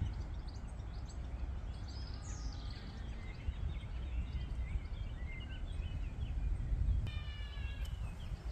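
Songbirds singing and calling, with a fast trill about seven seconds in, over a steady low rumble.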